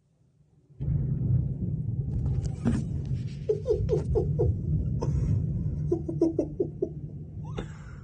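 Thunder from a close lightning strike: a sudden crack about a second in, then a deep crackling rumble that rolls on for several seconds and slowly fades. Twice over the rumble comes a short run of quick pitched sounds.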